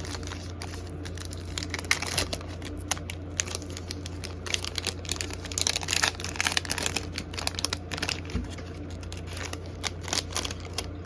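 Foil trading-card pack wrapper being crinkled and torn open by hand, a run of irregular crackles and clicks, over a steady low hum.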